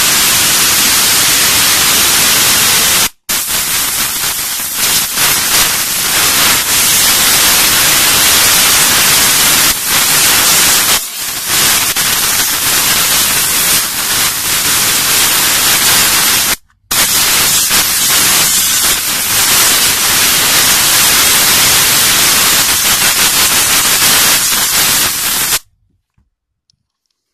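Steam cleaner's nozzle jetting steam in a loud, steady hiss. It cuts out for a split second twice and stops shortly before the end.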